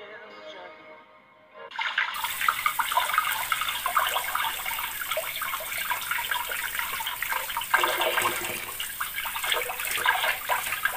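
Tap water running into a stainless-steel sink and splashing over hands scrubbing a crab clean under the stream. It starts about two seconds in, after the tail of faint background music.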